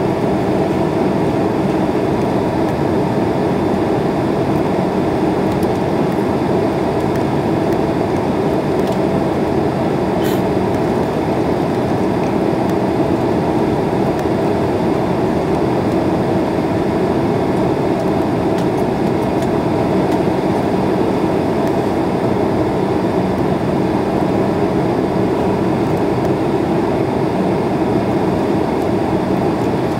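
Steady cabin noise inside an airliner descending toward landing: an even rush of jet engines and airflow heard from a window seat.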